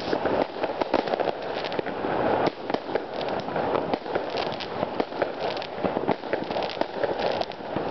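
Fireworks going off all around, a dense, unbroken run of bangs and crackling pops with a few louder bangs among them.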